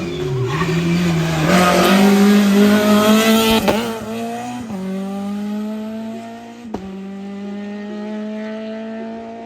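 A hillclimb race car's engine passes close by. Its pitch dips as it slows into a bend, then it accelerates hard away through several quick gearshifts, each marked by a sharp crack, and fades as it goes. There is a little tyre noise.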